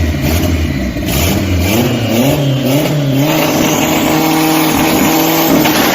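Car engine revving: a low rumble at first, then the pitch rises and falls in several quick blips before settling at a steady held pitch.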